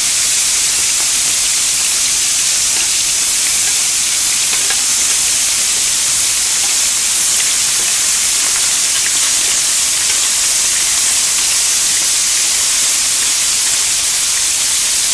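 Pork belly slices sizzling steadily in their own fat on a ridged grill plate over high heat.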